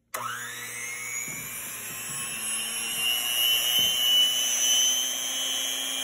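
Handheld electric mixer switched on and running, spinning strands of yarn tied to its beater to twist them into cord. It starts suddenly, its whine climbing in pitch as it spins up, then holds a steady, high whine with a low hum beneath.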